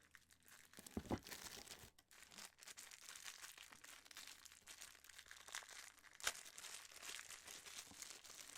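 Plastic packaging crinkling and rustling as a part is handled and unwrapped, with a sharper knock about a second in and another about six seconds in.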